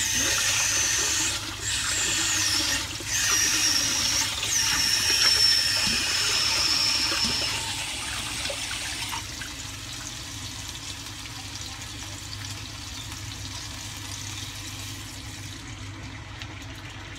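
Pork steaks sizzling in a hot frying pan just after water and soy sauce were added: a loud hiss with a high whistling tone, settling about nine seconds in to a quieter simmer.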